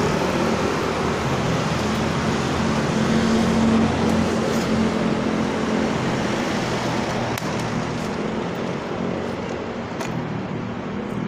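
Steady city traffic: a continuous rush of passing cars and engine hum, easing a little in the last few seconds.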